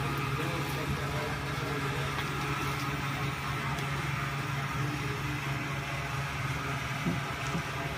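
Yamaha Lander 250's single-cylinder engine idling with a steady, even hum.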